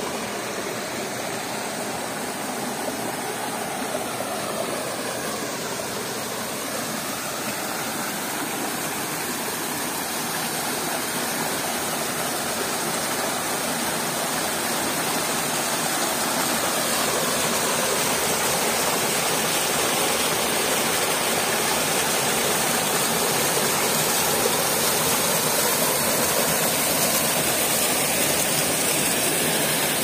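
Small waterfall cascading between rock boulders: a steady rush of falling water that grows gradually louder a little under halfway through, then holds.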